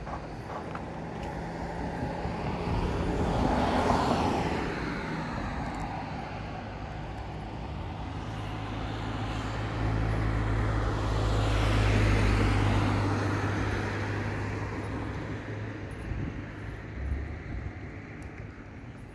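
Road traffic passing close by. One vehicle swells and passes about four seconds in. A second vehicle with a low engine hum builds up and passes about twelve seconds in, then fades.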